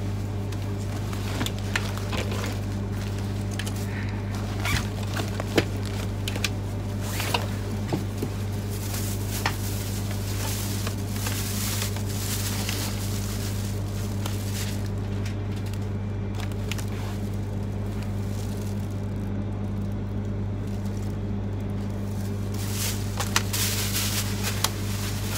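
A plastic bag and paper wrapping rustling and crinkling in hands, in short irregular bursts, over the steady low hum of a moving Shinkansen cabin.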